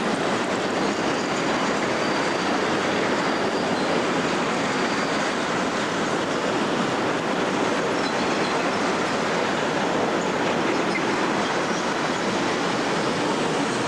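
A freight train's wagons rolling past on the main line: a steady noise of steel wheels on rail, with a faint high squeal a few seconds in.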